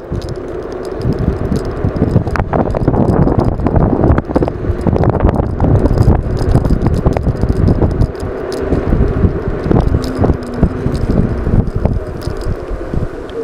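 Ride noise from an E100 Eagle electric scooter under way: wind buffeting the microphone, tyre and road rumble with frequent rattles, and a faint motor whine that drops in pitch about two-thirds of the way through.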